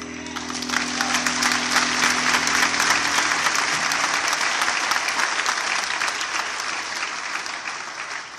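Audience applauding, building over the first couple of seconds and dying away near the end, over the last held notes of the music fading out.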